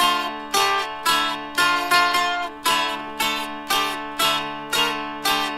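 Fretted dulcimer (a drone zither of the Scheitholt/Hummel kind) playing a melody in strokes about twice a second, over sustained drone strings that keep sounding beneath.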